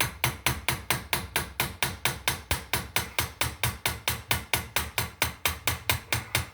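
Rapid, even mechanical clicking, about five or six sharp clicks a second, like a ratchet or clutch being run.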